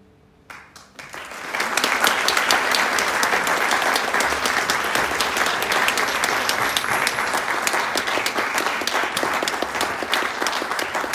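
Audience applause: after about half a second of near silence, scattered claps start and build within about a second into loud, steady clapping from many people.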